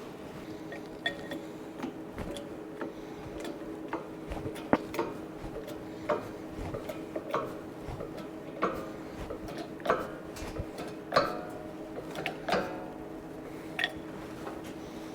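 Irregular metallic clinks, taps and knocks of steel dies and tools being handled and pressed into the holes of a sheet-metal panel, some with a short ring, over a steady low hum.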